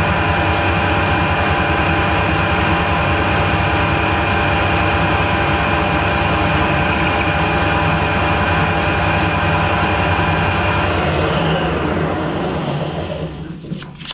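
Harrison 12-inch swing metal lathe running under power, turning down an EN1A mild steel bar with a steady mechanical whine. About twelve seconds in it is switched off and spins down to a stop, followed by a few light clicks.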